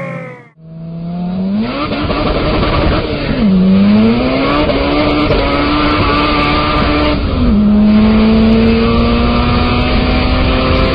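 Car engine at full throttle, its pitch climbing through the revs, with two gear changes about three and a half and seven and a half seconds in where the pitch drops and then climbs again.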